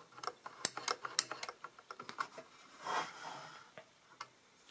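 Clicking of an Add-em toy adding machine's mechanism worked by hand, its button pulls and number wheels snapping in a quick run of sharp clicks. About three seconds in comes a short rustle of handling, then two more clicks near the end.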